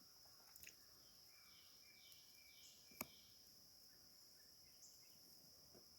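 Near silence with a faint steady high-pitched insect hum. A few faint chirps come in the first half, and there is a single soft click about halfway through.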